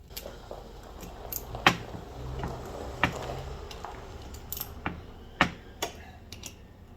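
Small bolts being run into and tightened on a steering gear box rebuild: irregular metallic clicks and clinks of the tool and metal parts, about ten separate sharp knocks.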